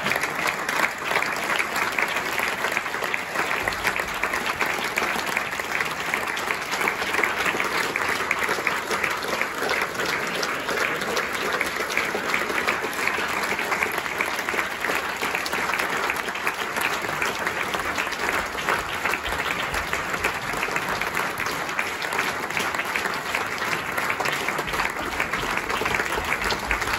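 A theatre audience applauding steadily, a dense continuous clapping that holds an even level throughout.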